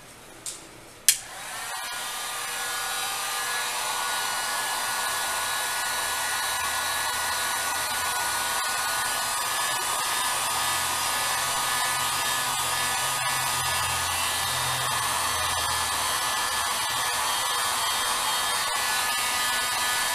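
Electric heat gun switched on with a sharp click about a second in; its fan spins up and then blows steadily with a faint whine. It is being used to loosen the tablet's glued screen glass.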